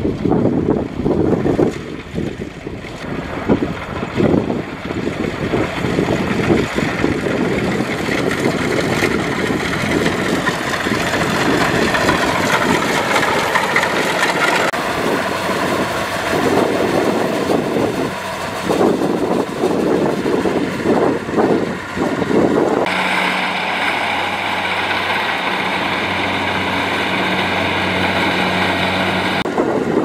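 Kubota DC70 rice combine harvester's diesel engine running under load while it cuts and threshes rice, with a steady machine drone and a rough, knocking clatter. About 23 seconds in, the sound turns steadier and more even, with a clearer hum.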